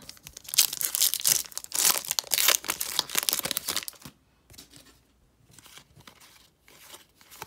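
A trading-card pack wrapper being torn open and crinkled: a loud, dense crackling rustle for about four seconds. After that come quieter scattered rustles and flicks as the stack of cards is pulled out and handled.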